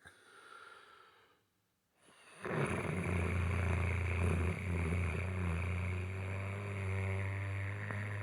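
A person snoring: a soft breath, a brief silent pause, then about two and a half seconds in a sudden loud, rough, low snore that carries on steadily.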